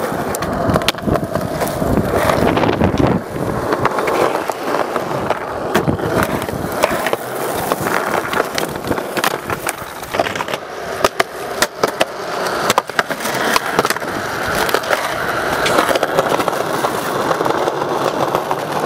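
Skateboard wheels rolling on rough concrete, with repeated sharp clacks of the board popping and landing.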